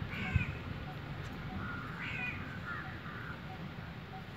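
Crow cawing several times, a few harsh calls that bend downward in pitch: one near the start, then more about two and three seconds in. A single soft thump comes about half a second in.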